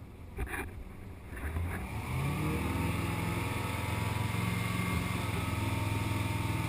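Tow boat's engine rising in pitch as it accelerates to pull a wakeboarder up from the water, from about a second and a half in, then running steadily at towing speed with water rushing past the hull. A few short knocks come before the engine picks up.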